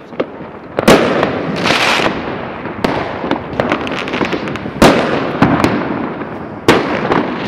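Fireworks going off: three loud bangs, about a second in, near five seconds and near the end, over continuous crackling and smaller bursts.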